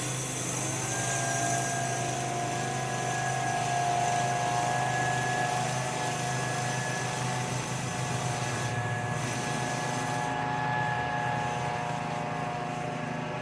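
Small gas engine of a power blower running steadily, a continuous whine over a low hum, as it blows dry dust off the street.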